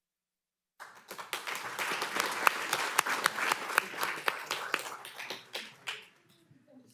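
Audience applauding, with many distinct hand claps; it cuts in abruptly just under a second in and dies away near the end.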